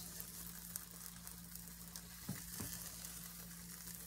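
Small pancakes sizzling faintly in a hot skillet, over a steady low hum. Two light clicks of the spatula against the pan a little past two seconds in.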